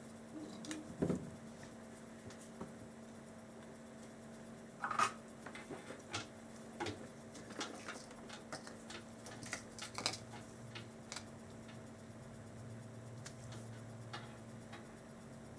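Scattered small clicks, taps and scratches from hand tools working on a headset's wires, the loudest about five seconds in, over a faint steady hum.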